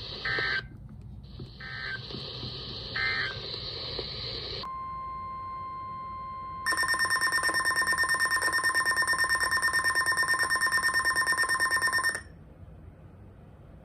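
Three short bursts of EAS digital data, the end-of-message code closing the previous alert, sound over a radio hiss. A steady alert tone of about 1 kHz then comes in faintly about five seconds in and turns loud from about seven to twelve seconds in. This is the attention tone that opens the next warning.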